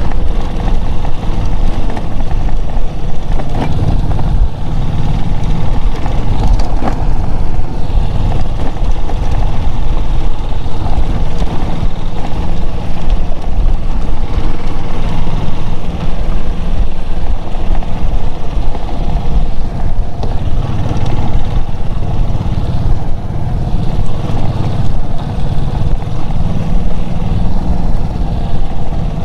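Vehicle driving steadily on a dirt track: a loud, continuous low rumble of engine and road noise.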